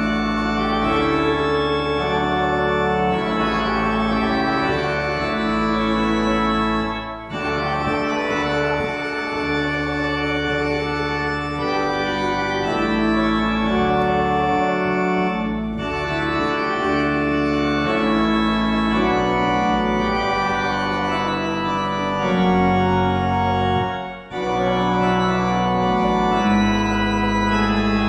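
Organ playing slow, held chords, broken by three short pauses between phrases.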